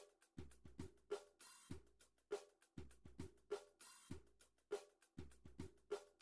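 Faint background music: a steady drum-kit beat of kick, snare and hi-hat.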